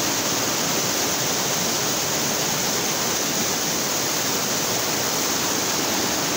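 Fast mountain stream rushing over rocks under high water pressure: a steady, even noise of white water.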